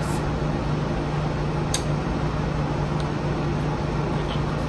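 Steady low mechanical hum of room machinery such as a fan or air-conditioning unit, with a few faint short clicks.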